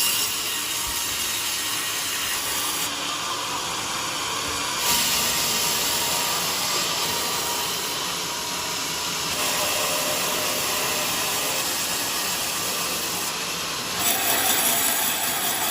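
Sawmill blade cutting through a teak log: a steady, hissing saw noise that shifts in tone several times.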